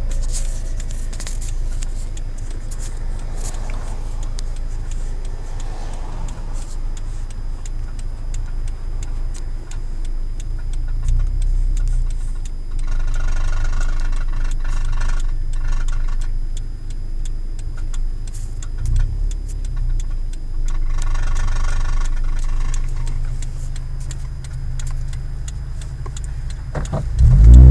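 Car engine running at a steady idle with a persistent fine ticking rattle of unknown origin. The rattle grows louder twice in the middle, and the engine revs up sharply near the end.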